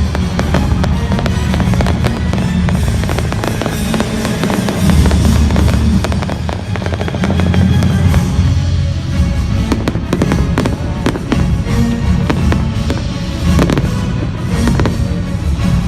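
Fireworks going off in a rapid string of bangs and crackles, with loud music playing throughout.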